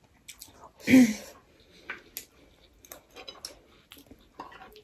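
Close-up eating sounds: chewing and lip smacks with small clicks of spoons on plates, and one brief louder breathy voice sound about a second in.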